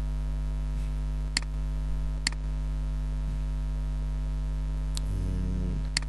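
Four sharp computer mouse clicks, spaced unevenly, over a steady electrical mains hum.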